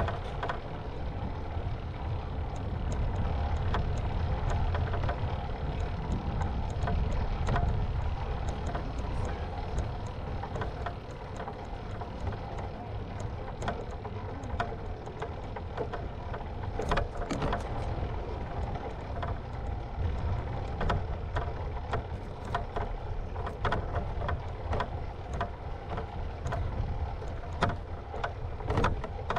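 Ride noise from a camera mounted on a bicycle rolling along a concrete path: a steady low rumble of wind on the microphone and tyres on the pavement, with frequent small knocks and rattles from the bike.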